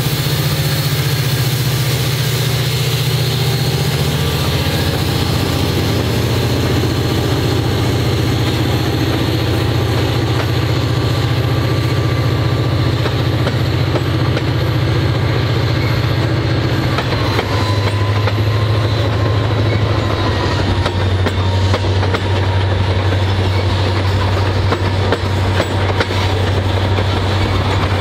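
EMD SD40-2 diesel locomotive pulling a loaded grain train past at close range, its turbocharged 16-cylinder engine working under load, then loaded covered grain hopper cars rolling by with their wheels clicking over the rail joints.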